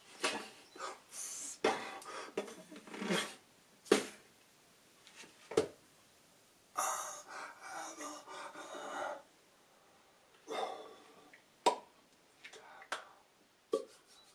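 A man's breath and mouth noises: puffs, huffs and gasps in irregular bursts, with a few sharp smacks among them.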